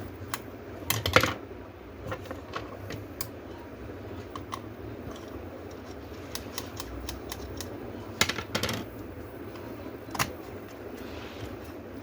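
Irregular clicks and taps of small plastic and metal laptop parts and tools being handled during a laptop teardown, with clusters of sharper knocks about a second in, about eight seconds in and once just after ten seconds, over a steady background hum.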